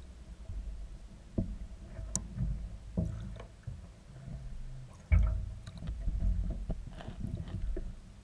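Bathtub water sloshing and splashing as sneakers are moved and dunked through it, heard from an underwater camera: a muffled low churning with a series of knocks and thumps, the loudest about five seconds in.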